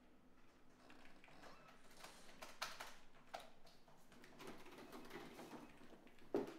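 Faint scattered clicks and taps of typing on a computer keyboard, with a single louder knock near the end.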